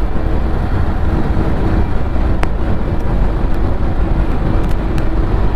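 Motorcycle on the move: steady engine and wind rumble on the helmet or camera microphone, with a single sharp click about two and a half seconds in.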